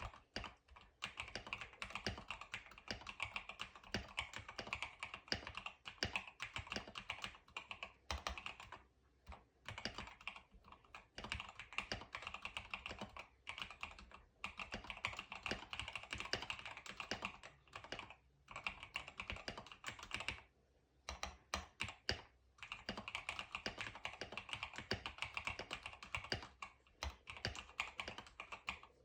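Typing on a mechanical keyboard with NovelKeys Cream linear switches and XDA profile keycaps: quick runs of keystrokes broken by short pauses, the longest about two-thirds of the way through.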